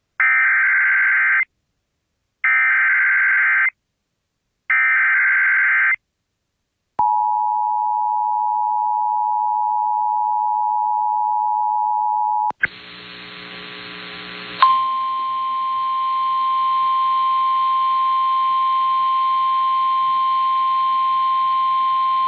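Emergency Alert System tones: three short bursts of the screeching SAME digital header, each about a second long, then the two-tone attention signal for about five seconds. After a brief noisy break comes a steady single-pitch weather radio warning tone lasting about nine seconds, played through a radio with some hum beneath it.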